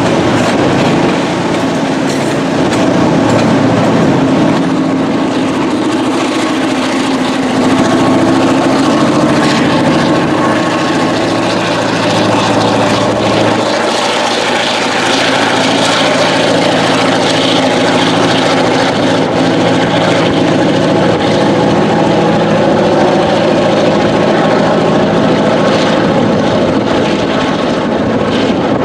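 The EMD 567 two-stroke V16 prime mover of a GP9RM road-switcher locomotive roaring under load as the locomotive reverses, with the rolling noise of freight car wheels on the rails.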